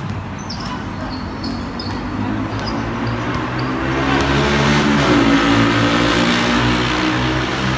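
A motor vehicle's engine passing close by, building to its loudest about five seconds in and then easing off. Basketball dribbles and sneaker squeaks on the court are heard in the first second or so.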